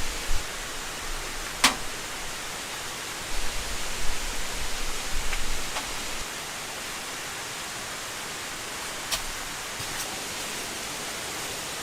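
Steady hiss of falling rain, with a few sharp drip ticks, the plainest about one and a half seconds in, and a low rumble that swells and fades in the middle.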